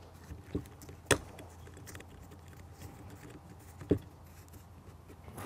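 Wing nuts being tightened by hand on a metal detector's arm-cup bolts: quiet fiddling sounds and three sharp clicks, the loudest about a second in.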